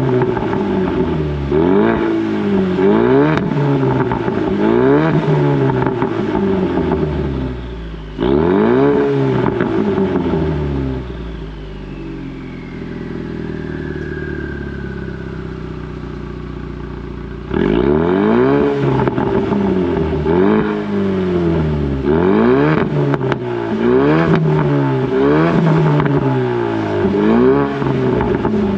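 2019 Ford Mustang EcoBoost's turbocharged 2.3-litre four-cylinder revved in quick blips while parked, heard at its active-valve exhaust tips set to sport mode. About eight seconds in, one rev falls back to a steadier idle with a falling whistle for several seconds, then the rapid rev blips resume.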